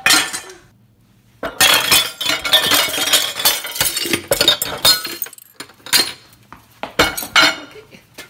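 Dishes, glasses and cutlery clattering and clinking in a kitchen sink as they are scrubbed and handled in a fast flurry. The clatter pauses about a second in, runs dense for about four seconds, then ends in a few separate knocks.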